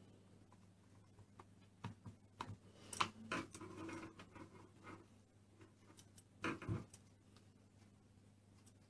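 Plastic Play-Doh moulds and tools being handled on a table: scattered clicks and taps, a busier cluster about three seconds in and a louder knock about six and a half seconds in, over a faint steady hum.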